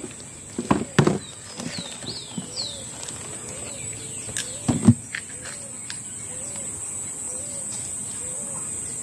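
Birds calling in woodland: a low call repeating about every half second, with several falling high chirps in the first few seconds, over a steady high insect drone. A few sharp knocks about a second in and again just before the middle are the loudest sounds.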